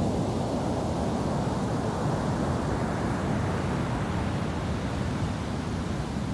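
Ocean surf breaking offshore and washing up a sand beach, a steady rush of noise, with wind rumbling on the microphone.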